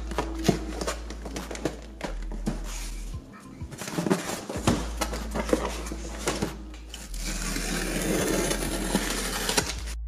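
Cardboard boxes being handled and moved: irregular knocks and rustles, then a longer scraping rush near the end as a shipping carton is shifted. Background music runs underneath.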